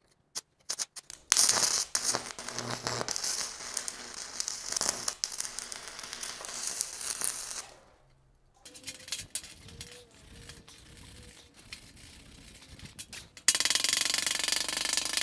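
Stick welding at 130 amps with a VEVOR MIG-130 3-in-1 welder. A few clicks come as the rod is struck, then the arc crackles and hisses loudly for about six seconds and stops. After a brief pause it crackles more quietly for several seconds, and a loud harsh burst of noise comes near the end.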